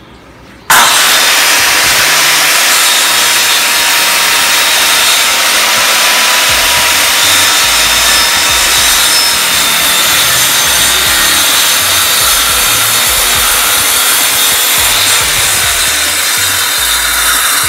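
Makita circular saw switched on about a second in and run steadily through a crosscut across a wooden board, guided by a crosscut jig.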